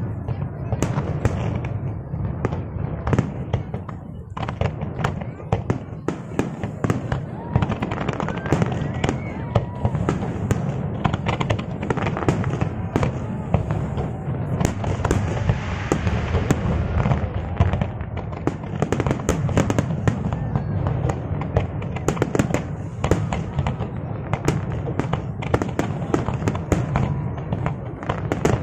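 Large aerial fireworks display: a dense, continuous barrage of bangs and crackling shells, many bursts a second, over a steady low rumble.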